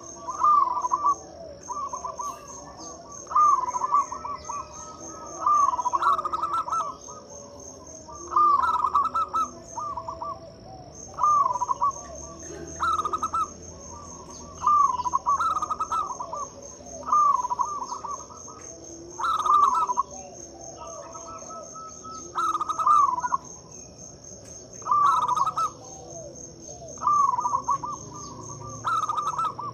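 Zebra dove (perkutut) cooing. Short phrases of rolling, trilled notes repeat about every two seconds, over a steady high-pitched cricket chirr with a fast pulse.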